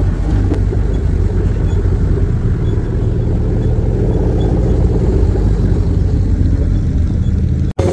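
Off-road 4x4 jeep driving over rough volcanic sand: a steady, loud, low rumble of engine and tyres. It breaks off for an instant just before the end.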